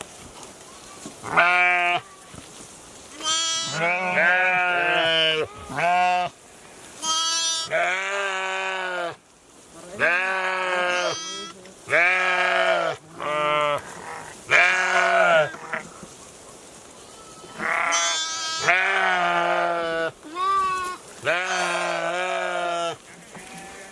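Sheep in a herd bleating: about a dozen wavering, quavering calls, some short and some drawn out to a second or two, coming one after another and sometimes overlapping.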